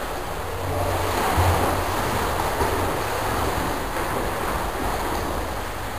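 Swimmers' kicking splashing and churning the water of a pool: a steady, even wash of water noise that swells a little about a second in.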